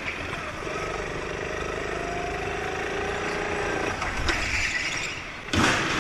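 Go-kart engine running steadily, its note rising slightly, as the kart laps an indoor track, followed by a short loud burst of noise near the end as the karts make contact.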